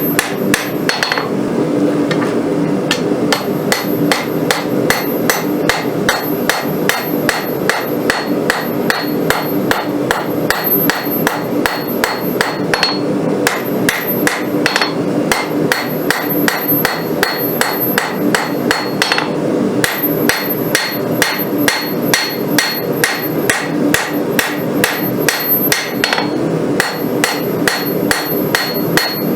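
Blacksmith's hand hammer striking hot steel on an anvil in quick, even blows, about three a second, each with a short metallic ring, while forging a sword blade from a rail spring clip. A few brief pauses break the hammering, over a steady background hum.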